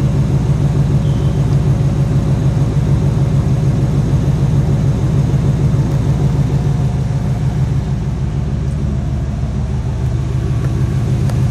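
1986 Chevrolet El Camino SS engine idling steadily at the tailpipe, with a low exhaust rumble, while it warms up on cold idle before kicking down.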